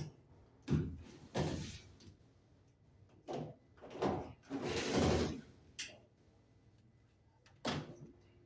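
Handling noises on a washing machine's cabinet while its top-cover screws are being removed: a series of short knocks and scrapes, the longest a drawn-out scrape about five seconds in.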